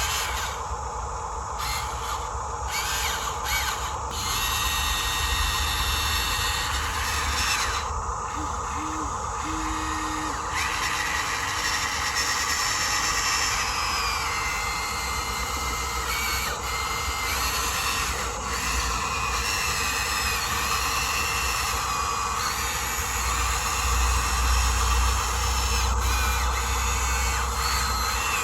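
Small electric motors and gearboxes of radio-controlled construction models whining, the higher whine cutting in and out and changing pitch every few seconds as different functions are driven.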